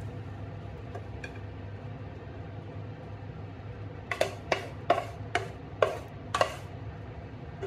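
A wooden spatula knocking and scraping against a non-stick frying pan as stir-fry is pushed out onto a plate. There are two faint knocks about a second in, then six sharp knocks in quick succession in the second half, all over a steady low hum.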